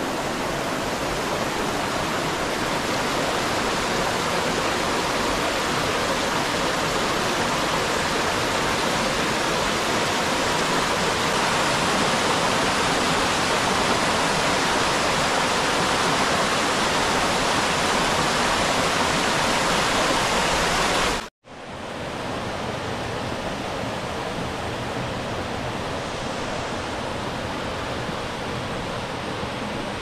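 Water of a rocky mountain brook rushing steadily over cascades and small waterfalls. The sound cuts off abruptly about 21 seconds in and comes back a little quieter.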